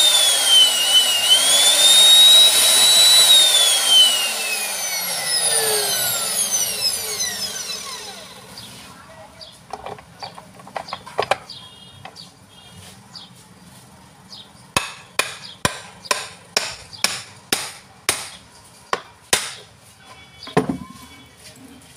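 The PH 65 demolition hammer's electric motor, fitted with a new field coil, runs with a loud high-pitched whine, then is switched off and winds down, its pitch falling over about four seconds. Scattered clicks and knocks follow, then a run of sharp metallic taps about two a second as the gear-housing cover is fitted back on.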